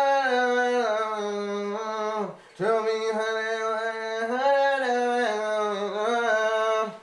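A man singing a wordless vocal melody in two long phrases of mostly held, level notes, with a short break about two and a half seconds in.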